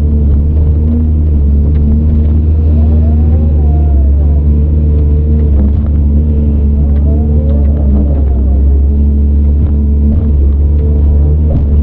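CAT 395 excavator's diesel engine running steadily and loudly, with a whine that rises and falls twice, about three and seven seconds in.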